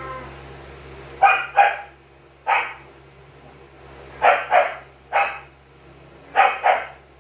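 Dog barking in short, sharp barks, mostly in quick pairs: two barks then one, twice over, then another pair near the end.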